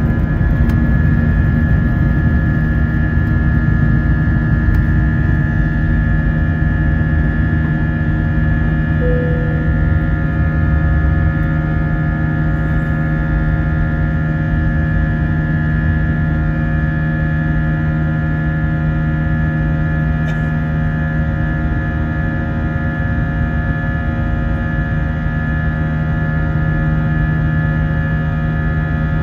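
Airbus A320's IAE V2500 turbofan engines at take-off thrust, heard from the cabin over the wing during lift-off and climb-out: a steady drone with fixed whining tones. A low rumble underneath eases off about eleven seconds in.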